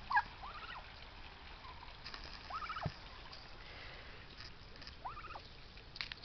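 Turkeys calling: three separate drawn-out calls about two seconds apart, each rising and then falling in pitch.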